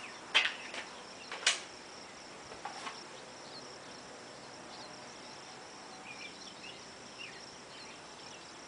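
A few footstep scuffs on gravel in the first three seconds, the loudest two about half a second and a second and a half in. Then quiet open-air ambience with a steady high insect chirp and a few faint chirps.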